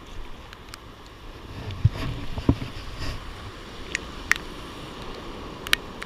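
Ocean surf and wind, dull and muffled as heard through a GoPro's waterproof case. A handful of sharp ticks are scattered through it, and two dull thumps come about two seconds in.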